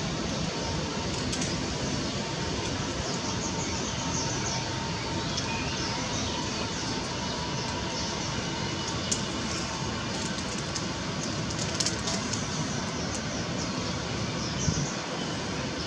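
Boeing 777-2B5(ER)'s two Pratt & Whitney PW4090 turbofans at taxi power: a steady rumble and hiss with a faint thin whine, and a few light ticks.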